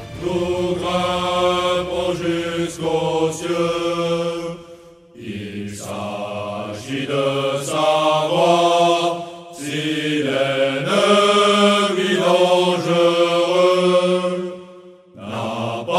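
Background music: a slow chant sung by low voices, in long held phrases broken by short pauses about five and fifteen seconds in.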